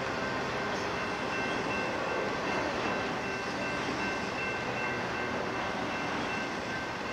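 Union Pacific freight train rolling past: a steady rumble of wheels on rail, with a few thin, steady high tones over it.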